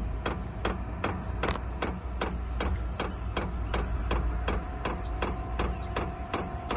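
Chinese diesel air heater's fuel dosing pump ticking steadily, about two and a half clicks a second, as it meters fuel into the cold burner during start-up, over the steady hum of the heater's blower fan. About four seconds in, a steady whine joins as the fan speeds up.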